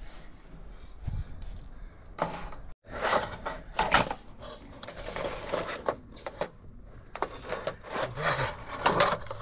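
Wood scraping and rubbing in irregular bursts as trim pieces are worked and handled, louder a couple of seconds in and again near the end.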